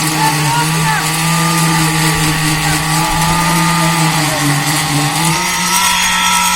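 A motor on concrete-pouring equipment running steadily at a near-constant pitch, with small shifts in speed about five seconds in.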